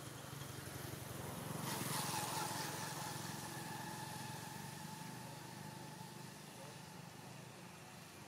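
A motor vehicle engine passing by, faint: it swells to its loudest about two seconds in, then slowly fades, its whine dropping slightly in pitch.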